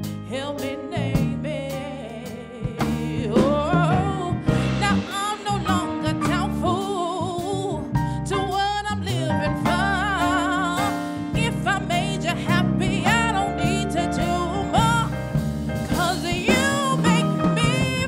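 Music with a singer's voice holding and bending notes in wavering runs over instrumental accompaniment.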